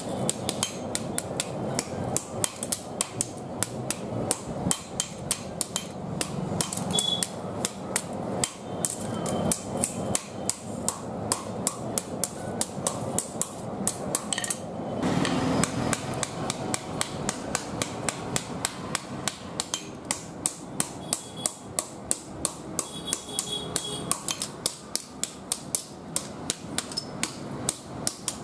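Hand hammer beating a billhook (kodavali) blade on a steel anvil in rapid, even blows as the blade is forged into shape, with one short break a little before halfway.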